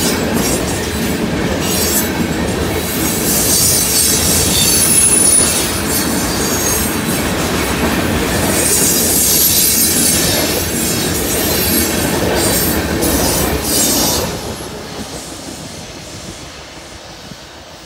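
Freight train of tank cars rolling past close by: a steady rumble of steel wheels on rail, with clicking at the rail joints and high wheel squeal coming and going. About fourteen seconds in, the sound drops sharply and then fades as the train recedes.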